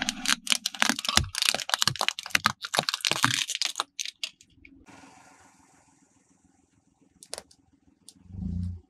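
A car tyre rolling over and crushing a row of shiny striped balls on asphalt: a dense run of sharp cracks and crunches for about four seconds. A couple of faint cracks follow later, and a short low rumble comes just before the end.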